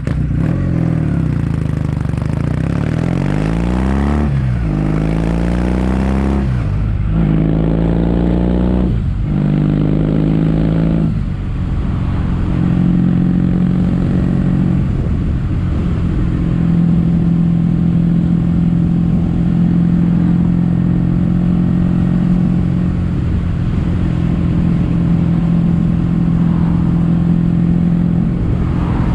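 Kawasaki W800 parallel-twin through Yamato stainless-steel Caberton-style silencers, accelerating through the gears: the pitch rises and drops at about four upshifts in the first eleven seconds, then the engine runs at a steady cruise.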